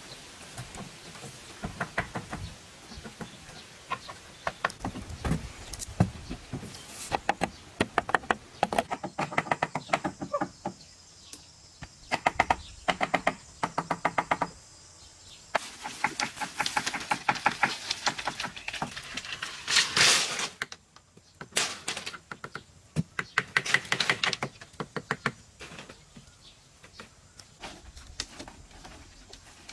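Wooden poles and bamboo knocking and clattering as they are handled and fitted into a frame, with stretches of rapid clicking.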